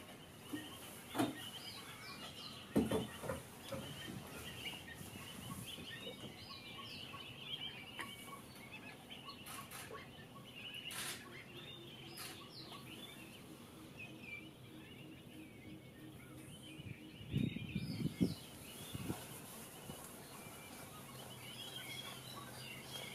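A flock of pied avocets calling, many short, high, clipped calls overlapping in a scattered chatter. A few dull low thumps stand out above them, a couple near the start and a cluster a little before the end.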